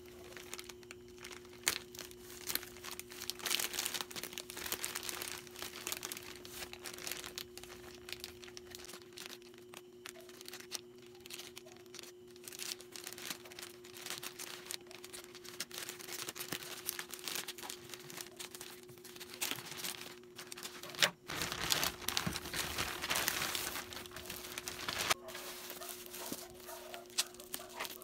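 Packaging being handled and crinkled: rustling with scattered light clicks and taps, louder for a few seconds about three-quarters of the way through. A faint steady hum runs underneath.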